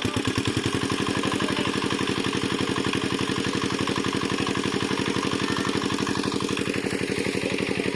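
A small engine running steadily with an even, rapid firing beat.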